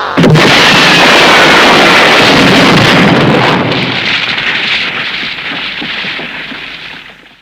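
Explosion sound effect in the style of old Japanese monster films: a sudden blast about a fifth of a second in, then a long hissing rumble that fades away over about seven seconds.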